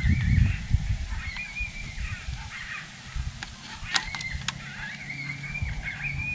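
Repeated high-pitched, wavering animal-like cries that warble up and down, over a low wind rumble on the microphone. A few sharp clicks come near the middle.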